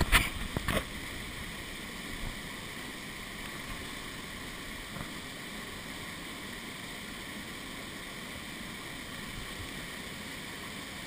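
Canyon waterfall pouring into a plunge pool: a steady rush of falling water. A few sharp knocks come in the first second.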